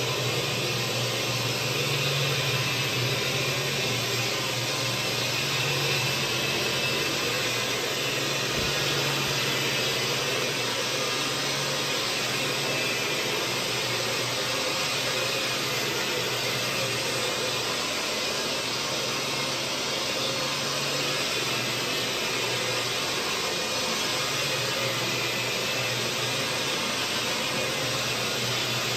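Carpet-cleaning machine running with a steady vacuum-like rush and a low motor hum, with one brief low knock about eight and a half seconds in.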